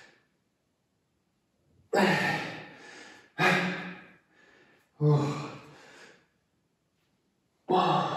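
A person breathing out hard with a voiced grunt of effort, four times. Each exhale starts suddenly and trails off, in step with strained repetitions during a high-intensity interval.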